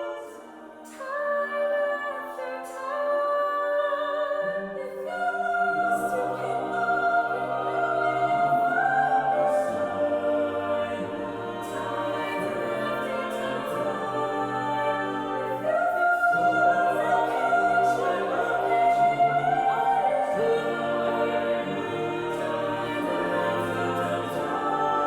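Music with choir-like singing in long held notes, the chords changing every second or two; a lower part comes in about five seconds in.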